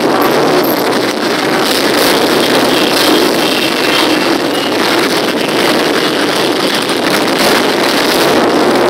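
Many motorcycles riding slowly past in a line, among them cruisers, a sport bike and a trike, their engines running together in a loud, continuous mix of exhaust noise.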